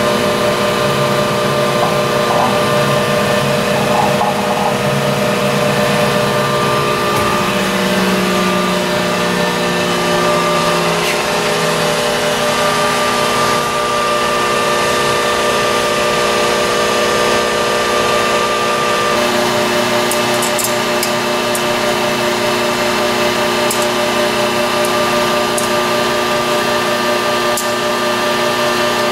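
Mattison 12" x 48" surface grinder running, a steady machine hum made of several held tones. The lower tones shift about two-thirds of the way through, and a few faint clicks follow.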